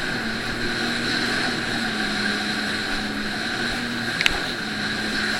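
Jet ski engine running steadily under way, with a constant hum and a hiss of wind and water. A single sharp click comes a little over four seconds in.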